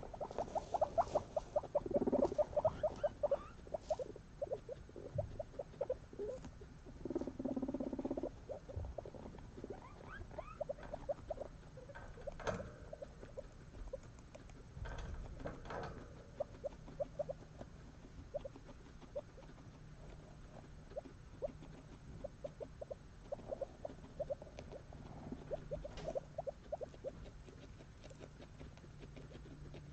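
Guinea pigs chewing hay up close, a quick run of small crunching clicks, with hay and paper bedding rustling; the chewing is densest in the first several seconds and thins out later.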